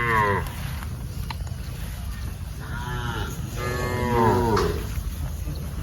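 Cattle mooing: a short moo falling in pitch at the start, then a longer, louder moo about two and a half seconds in.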